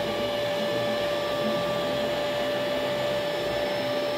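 Spindle motor of a small 3040 CNC router running with a steady high whine while its bit cuts tenons in a wooden board.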